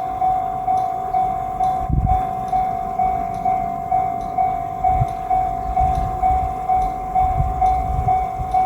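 Japanese level-crossing warning bell ringing in a steady, even rhythm of a little over two strikes a second, while a low rumble comes and goes underneath.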